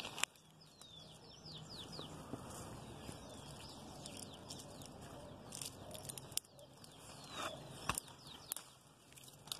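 Leaves and twigs rustling and crackling faintly as a hand works through a fruit tree's branches, with a sharp snap just before the fruit comes free near the end. Small birds chirp faintly in the background.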